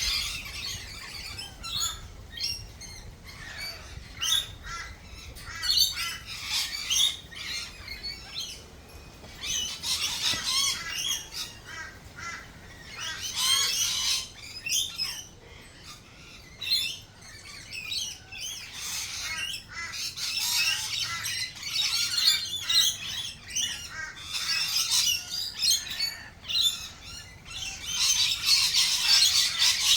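Australian native birds calling, many short calls overlapping into a busy chorus that swells and thins, busiest at the start, in the middle and over the last few seconds.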